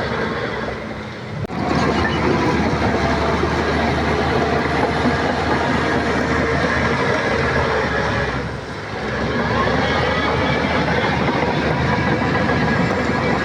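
Shantui crawler bulldozer working: its diesel engine running steadily together with the clatter of its steel tracks. The sound eases off briefly about a second in and again about two-thirds of the way through.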